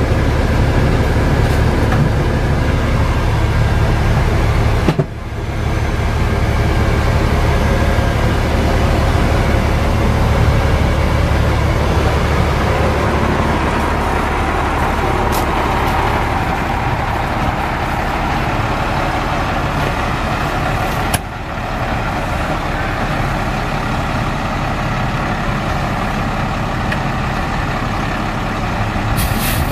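International 4900's DT466 inline-six diesel engine idling steadily, with a deep low hum; the sound drops out briefly twice.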